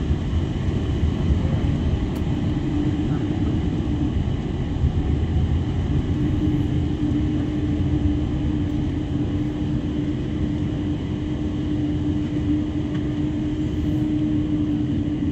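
Cabin noise of a Boeing 777-300 rolling on the ground after landing: a steady low rumble from the wheels and engines, with a steady hum that comes through more strongly from about six seconds in.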